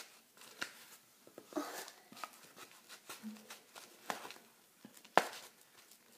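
Sticky frosting-and-powdered-sugar slime being pulled apart and squeezed by hand: a string of small irregular clicks and sticky pulling sounds, with one sharp click about five seconds in.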